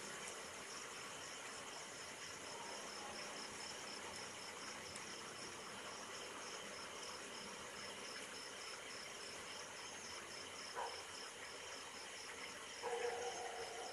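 Night insects chirping steadily, a regular high pulsing over a continuous high hiss of chirping. A brief lower sound comes about eleven seconds in, and a steady low tone starts near the end.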